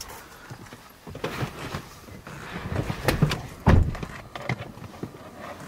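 A series of knocks, clicks and rustles inside a car, with one heavy thump a little under four seconds in.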